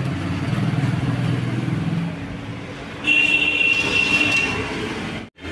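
A motor vehicle engine running low and steady in the background for about two seconds, then easing off. About three seconds in, a high, steady tone sounds for about a second and a half; the audio cuts off suddenly just before the end.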